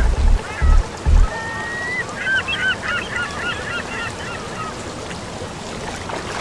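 Birds calling: a rapid series of many short, curving calls, with one longer whistle about a second and a half in, thinning out after about four and a half seconds. A few deep thumps sound in the first second.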